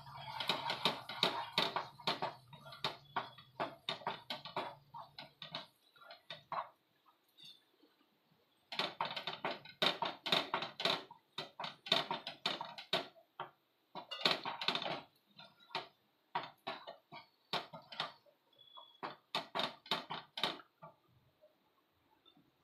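Wooden spatula scraping and knocking against a nonstick frying pan as a thick, stiffened paneer and milk-powder barfi mixture is stirred, in irregular clusters of strokes with short pauses.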